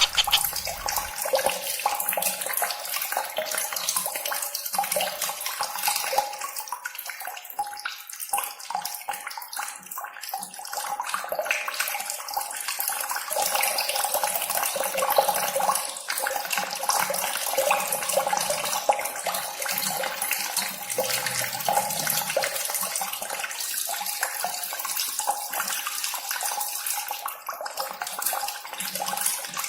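Steady rushing water, a dense even hiss with no low rumble.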